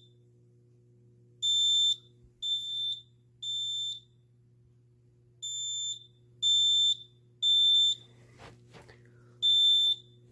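Fire alarm control panel's piezo buzzer in alarm, sounding a high, pure-pitched beep in the temporal code-3 pattern: three short beeps, a pause, three more, and a new group beginning near the end. A faint steady low hum lies underneath.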